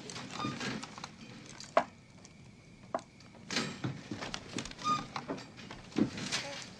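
Scattered soft knocks, creaks and rustling as a person climbs over the rail of a metal baby crib, with a sharp knock about two seconds in and a few brief squeaks.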